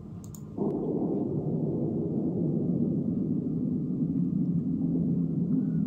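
Slowed-down sound of kendo practice played back in slow motion: a deep, smeared, steady rumble that starts suddenly about half a second in.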